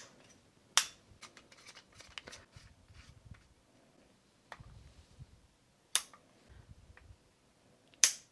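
Hard plastic clicks and taps as blade pieces are pushed into a Disney Legacy lightsaber hilt: three sharp clicks, about a second in, about six seconds in and near the end, with fainter ticks and handling rustle between.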